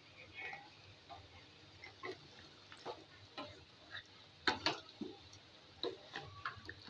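Thick beef and lentil stew (mezbani daal) simmering in a pot, its bubbles popping in short, irregular plops, about one or two a second.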